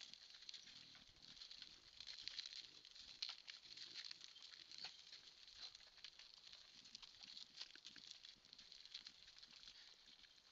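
Faint, irregular patter and scuffing of javelina (collared peccaries) moving and foraging right at the camera, hooves on gravel and bristly bodies rustling close by.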